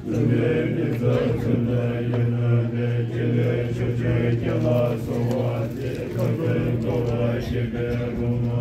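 Tibetan Buddhist monks chanting together in deep, steady voices, a low drone held under the recitation throughout.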